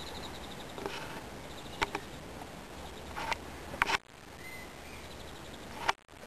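Light clicks and knocks from handling the camera and the loose lens while zooming in, a few of them sharp, over a steady background hiss that drops out briefly twice.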